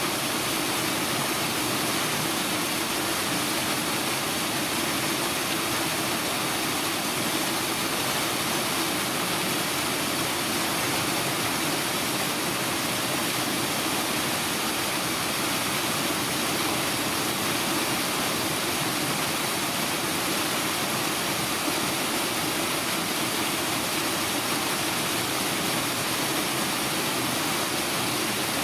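Steady, unchanging rushing noise with no breaks or distinct events.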